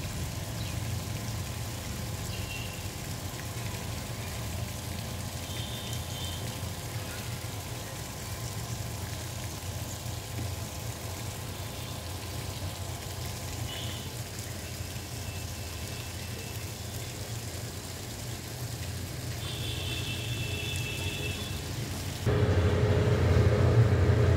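Outdoor background noise: a steady low rumble with a few faint, short high chirps scattered through it. About two seconds before the end it abruptly gets louder, with a steady hum added.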